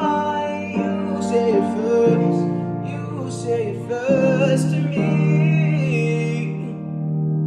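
A slow ballad sung by a male voice over piano accompaniment.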